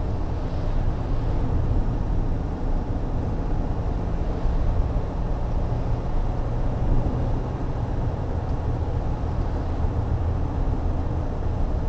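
Steady low rumble of a car driving along at road speed, heard from inside its cabin.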